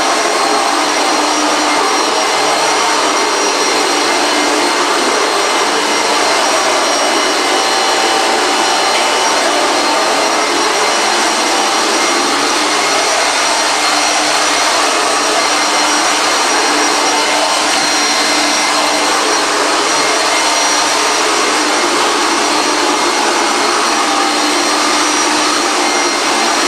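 Singer Power Amp bagged vacuum cleaner with an 8.5-amp motor running steadily, a constant rushing noise with a thin whine.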